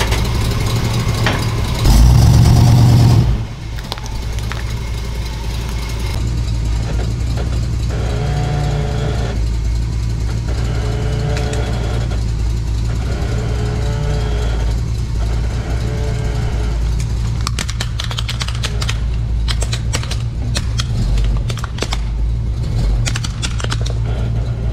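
Off-road vehicle's engine idling steadily, with a loud burst of noise about two seconds in. In the last several seconds there is a run of sharp cracks and snaps as the tire rolls onto a plastic toy quad bike and crushes it.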